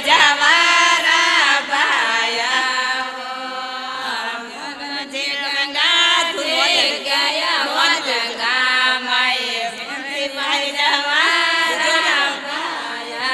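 A group of women singing a Rajasthani Marwari devotional song to Ganga Maiya in a chant-like style, with long wavering held notes.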